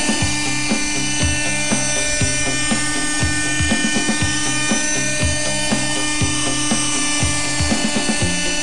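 Radio-controlled model helicopter's motor and rotor whining steadily, with background music and a regular beat over it.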